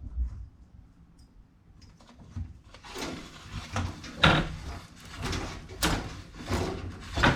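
Quiet at first, then from about three seconds in a run of knocks, clunks and scraping, as of objects being handled and bumped. The loudest clunks come a little over a second apart.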